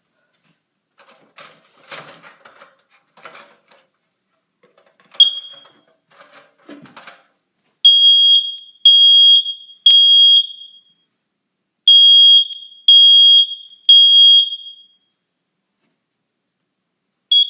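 Kidde 10SDR smoke alarm sounding on test, after faint handling clicks and a short chirp about five seconds in. It then beeps loudly and high-pitched in the temporal-three pattern: three beeps, a pause, three more, and one last beep near the end.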